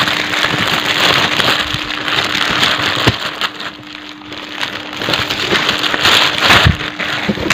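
Clear plastic packet of balloons crinkling and rustling as it is handled, easing off briefly around the middle and picking up again. A faint steady hum runs underneath.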